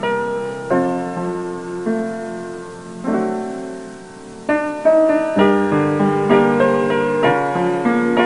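Background piano music, chords struck one after another and left to ring and fade.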